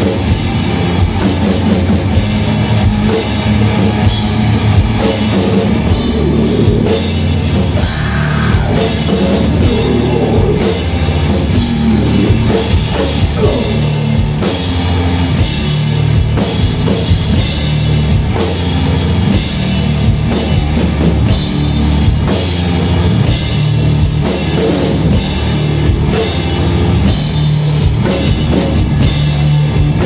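Doom metal band playing live: a drum kit beating steady drum and cymbal hits under a dense, heavy guitar sound.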